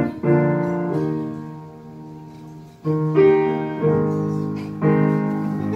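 Steinway grand piano playing sustained chords. A chord is left ringing and fades for a couple of seconds, then a louder chord comes in about three seconds in, followed by further chords about once a second.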